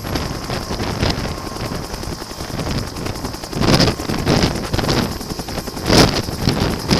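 Bell UH-1 Huey helicopter close by, its turbine and two-bladed main rotor running at flight speed as it lifts off into a hover. From about halfway, rotor downwash buffets the microphone in loud gusts.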